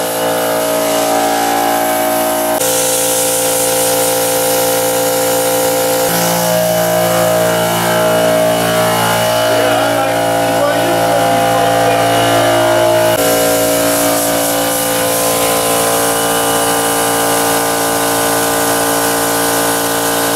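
Air-fed spray gun hissing over a steadily running air compressor while the coating is sprayed on; the drone changes abruptly a few times.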